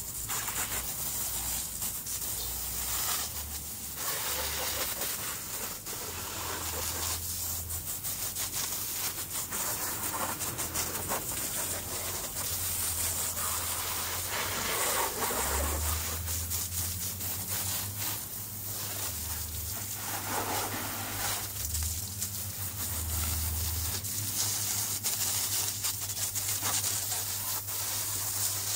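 Water from a garden hose spraying and splashing onto a quad bike's tyres and bodywork: a steady hiss that swells and fades as the stream is moved over the machine.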